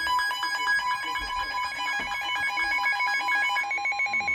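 Electronic Emergency Alert System warning tone: a rapid, loud warble alternating between two pitches, switching to a different, wider-spaced pair of pitches about three and a half seconds in.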